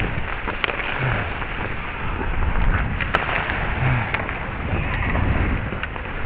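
Ice-hockey skate blades scraping and carving on the ice, heard close up from a helmet-mounted camera, with a few sharp clicks.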